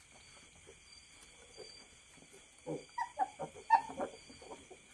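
Newborn piglets at the sow's teats giving a quick run of short squeaks and squeals in the second half, the loudest a little past the middle. A steady chirring of crickets runs underneath.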